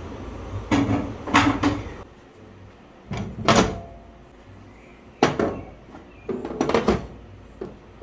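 Cast-iron gas-stove grates being set down on a stainless-steel hob, clanking and knocking in about five short bursts.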